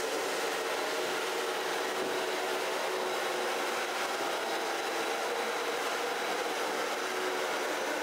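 LECAN R-43M wet floor scrubber running steadily: its suction motor and twin rotating brushes scrub and vacuum up spilled coffee, giving an even motor hum with a steady whine.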